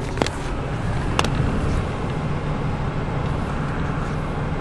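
Steady low engine and road rumble inside a truck's cab while driving. Two sharp clicks in the first second and a half come from the camera being handled.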